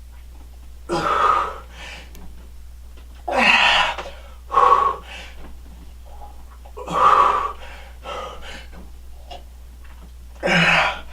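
A man breathing hard through a set of heavy dumbbell presses, with five loud, forceful exhales a few seconds apart, some with a grunt in them. A steady low hum runs underneath.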